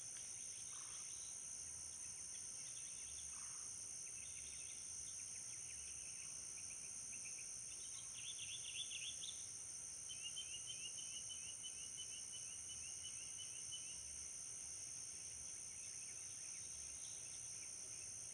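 Steady high-pitched insect chorus, with birds calling over it: a quick trill about eight seconds in, then a run of rapid repeated chirps.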